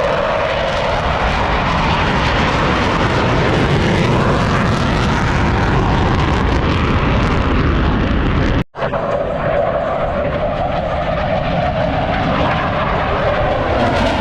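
Super Decathlon aerobatic airplane flying a display, its engine and propeller a loud steady drone with a held tone that drifts slightly in pitch. The sound cuts out for an instant about two-thirds of the way through, then carries on.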